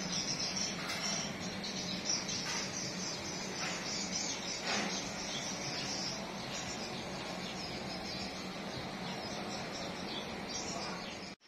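High-pitched chirping of insects and birds, steady and continuous, cutting off suddenly near the end.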